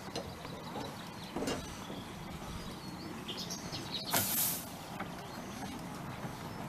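Narrow-gauge steam locomotive moving slowly towards the listener, giving one loud hissing chuff of exhaust steam about four seconds in. Birds chirp faintly in the background.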